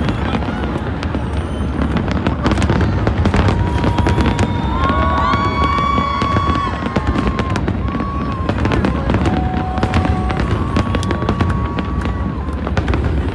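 Fireworks display: rapid bangs and crackles from aerial shells over a steady low rumble, with a few held tones about halfway through.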